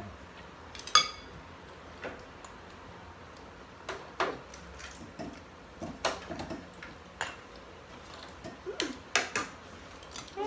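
Cutlery clinking against plates and bowls during a meal, in scattered separate clinks, one of them ringing about a second in.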